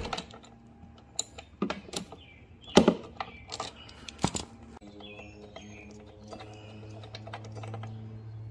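Sharp clicks and clinks of a socket wrench and spark plug being worked off a Briggs & Stratton OHV lawnmower engine, a handful of separate knocks in the first half, while clearing a hydrolocked cylinder. From about five seconds in a steady low hum runs underneath.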